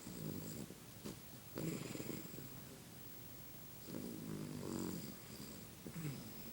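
Dog snoring, one snore with each breath, about every two seconds.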